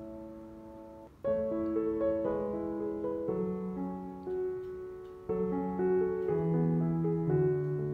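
Background piano music: held chords and single notes, with a fresh chord struck about every two seconds.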